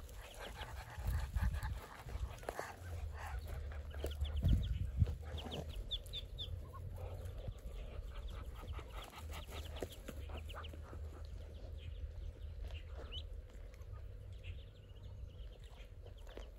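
Muscovy ducklings peeping in quick, high, thin chirps, busiest a few seconds in and again near the end, over a low steady rumble.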